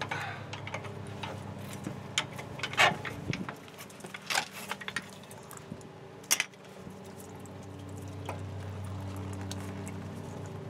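Sharp metal clinks and scrapes of a screwdriver or pry bar working a truck's front brake caliper loose from the rotor and bracket, a few separate strikes, the loudest about three and six seconds in. A steady low hum runs underneath and grows louder near the end.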